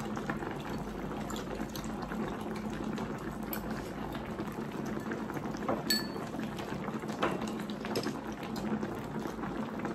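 Chicken hotpot broth boiling in its pot, a steady bubbling, with a few light clicks now and then.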